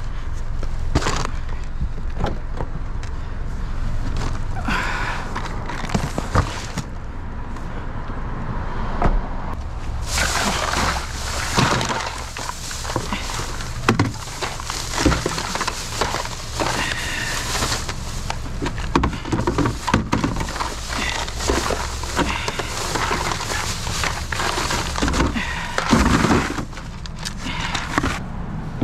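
Plastic bags and food packaging rustling and crinkling, with bottles and containers knocking and clattering as they are packed by hand into a clear plastic storage tote. The handling grows busier about a third of the way in.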